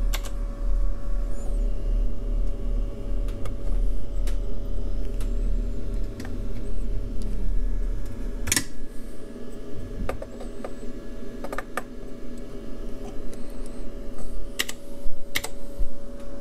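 Scattered clicks and taps of an ECL82 vacuum tube being pulled and seated in an Amplitrex AT1000 tube tester and of the tester's keypad being pressed, over a steady hum with a faint steady tone.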